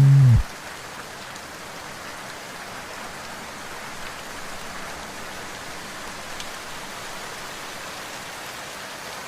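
Steady rain falling, an even hiss with no music over it; the end of a song's last note cuts off about half a second in.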